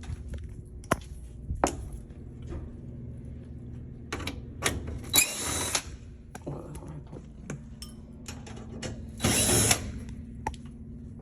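Hand tools at work on metal: scattered clicks and knocks, with two short rattling bursts of a ratchet-like tool, one about five seconds in and one about nine seconds in.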